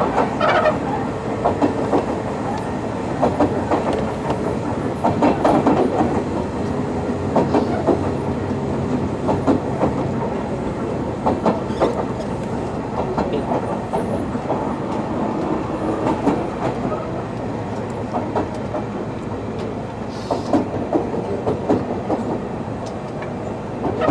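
Running noise heard inside a Sotetsu New 7000 series motor car with Hitachi GTO inverter control: a steady rumble with frequent wheel clicks over rail joints and a faint steady motor tone underneath.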